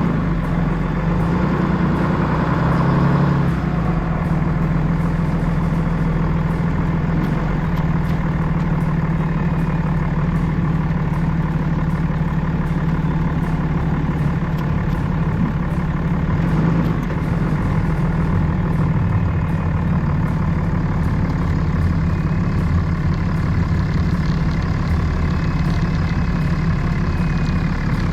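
An engine running steadily, with a slight change in its sound about three and a half seconds in.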